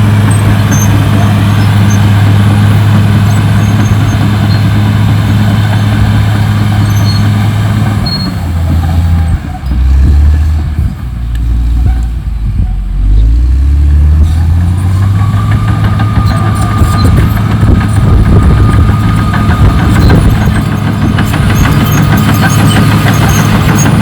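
A CAT D6R XL bulldozer's diesel engine running loud and steady. About a third of the way in, its pitch sinks for several seconds and then climbs back to the same steady speed. After that a thin high whine runs along with it.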